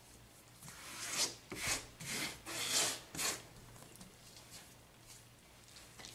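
Hands kneading marshmallow fondant on a silicone baking mat dusted with powdered sugar: a run of about five rubbing strokes in the first half, then only faint handling.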